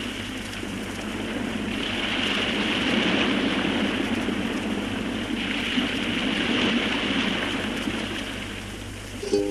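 A steady rushing noise that swells and eases every few seconds, with a low steady hum beneath it. Ukulele music comes in right at the end.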